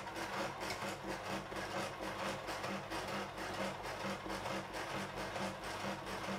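Small electric Mini Jaguar sewing machine running steadily, its needle stitching in an even, fast rhythm as a hem is sewn.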